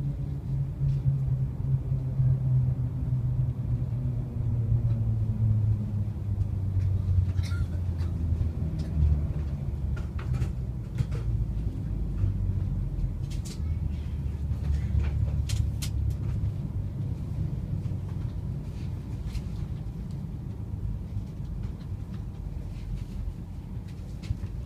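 Shanghai Transrapid maglev train heard from inside the carriage as it slows into the station: a low hum that slowly falls in pitch, with a few scattered clicks and knocks in the middle.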